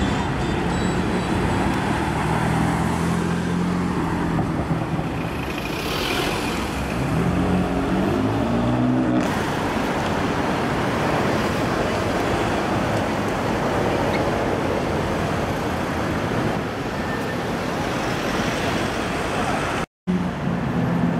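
Sports car engines and street traffic as cars drive past, with one engine revving up in a rising note about seven seconds in. The sound cuts out briefly just before the end.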